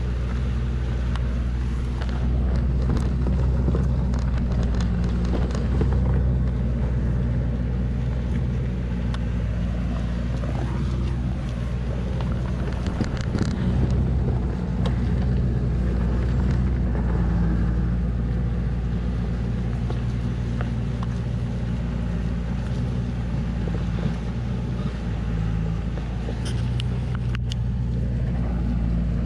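Engine of a truck laden with acacia logs running steadily under load as it crawls along a muddy dirt track, its pitch rising and falling slightly now and then with the throttle.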